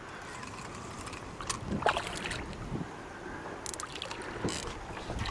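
Water sloshing against the side of an anchored small boat, with a few short splashes from a hooked bass thrashing at the surface, mostly in the middle and second half.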